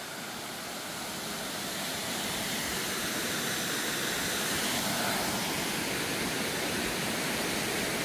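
Rushing water from a mountain waterfall and its rocky stream, a steady hiss that grows slowly louder.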